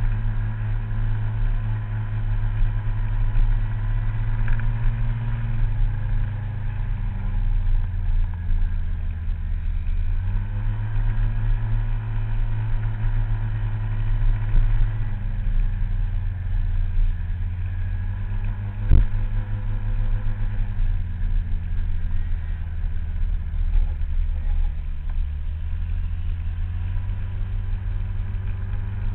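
Scooter engine running while riding, its pitch falling and rising several times as the throttle is eased and opened again. A single sharp knock about two-thirds of the way through.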